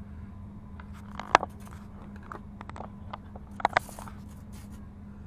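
Several sharp clicks and light handling knocks over a steady low hum. The loudest click comes about a second and a half in, and a quick pair of clicks near four seconds.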